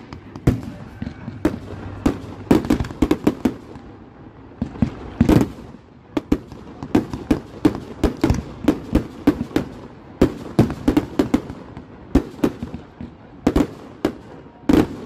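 Aerial fireworks bursting in quick succession: a dense string of bangs and crackles, several a second, with a few louder bangs among them.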